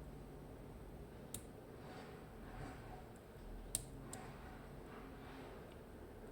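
Dimple-lock picking in a Mottura C55 cylinder: three faint, sharp clicks, the loudest a little past the middle, with soft scraping of the pick in the keyway between them.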